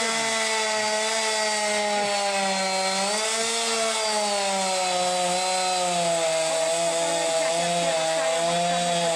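Chainsaw running at high revs while cutting into a large tree trunk, its pitch sagging and recovering a little as it takes load.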